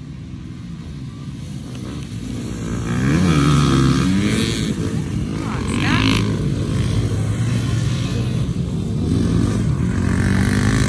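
Several dirt bikes accelerating away from a race start and riding past one after another, engines revving hard. The sound builds about two to three seconds in, and the engine pitch rises and falls as each bike goes by.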